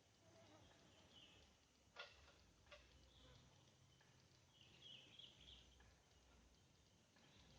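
Near silence: faint outdoor background with a few faint high chirps and two soft clicks about two seconds in.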